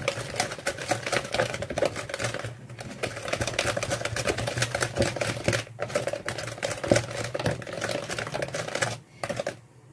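Hand whisk beating basbousa batter in a plastic bowl: fast, steady clicking of the wires against the bowl. There are brief pauses about two and a half and six seconds in, and it stops about nine seconds in.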